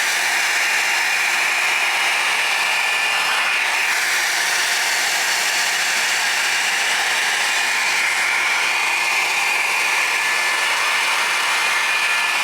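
Revlon One-Step Volumizer Plus hair dryer brush running on its low setting: a steady rush of air with a high whine that holds one pitch.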